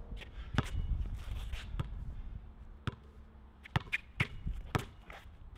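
Basketball being dribbled on an outdoor hard court: a series of sharp, irregularly spaced bounces.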